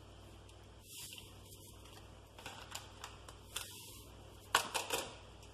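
Small yeast sachet crinkling in the hand as instant dry yeast is shaken out of it into a plastic bowl: scattered quiet crackles, with a quick cluster of sharper crackles near the end.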